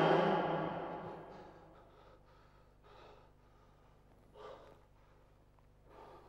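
Music fades out at the start, then a man breathes heavily three times, about a second and a half apart, as on waking with a start from a bad dream.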